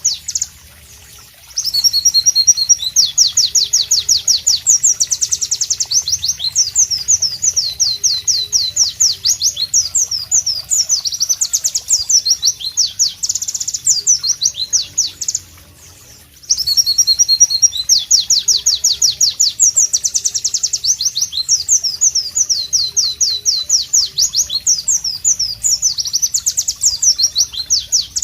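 White-eye (pleci) singing loud, rapid runs of sharp, high notes in two long song bouts, each broken off by a short pause, one about a second in and one near the middle.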